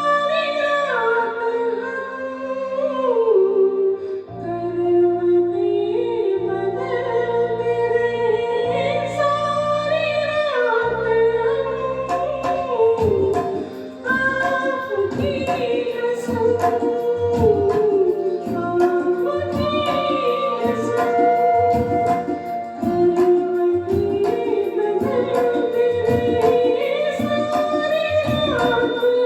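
Music: a high, woman-like singing voice carrying a long melodic line over a sustained accompaniment, with a steady rhythmic beat joining about halfway through.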